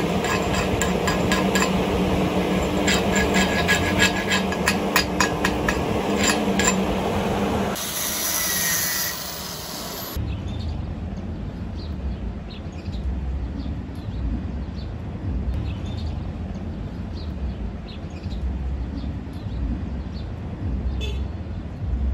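Chipping hammer knocking slag off a 7018 cap weld on steel plate: rapid, irregular metallic strikes over a steady machine drone. About eight seconds in the strikes stop; a short hiss follows, then only a quieter low rumble with faint clicks.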